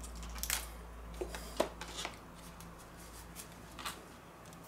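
Kitchen knife cutting the leaves and stalks off a head of raw cauliflower on a wooden board: about five short, crisp crunching snaps, over a low steady hum.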